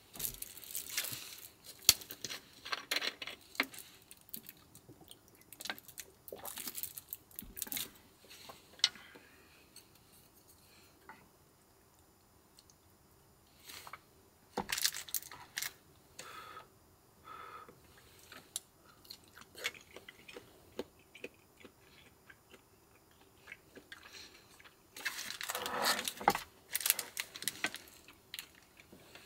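Irregular clicks, clatters and crunchy rustling of things being handled in a small enclosed space, with quiet gaps between, and a longer, louder rustle near the end.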